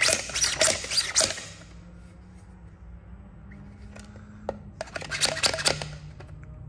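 3D-printed plastic print-in-place collapsing drill sword clicking and rattling as its blade segments are pushed and twisted down into the base. The clicks come in two bursts: a flurry at the start lasting about a second and a half, and another about five seconds in.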